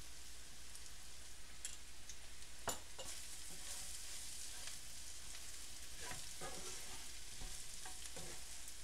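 Beef strips frying in a pan with onion and spice masala: a faint, steady sizzle with the occasional scrape and click of stirring, one sharper click about two and a half seconds in. The beef is in its last stage of frying until crisp.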